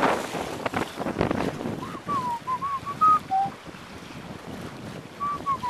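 Wind buffeting the microphone, dying down about a second and a half in. Then a short whistled phrase of about eight wavering notes, ending on a lower one, that starts again near the end.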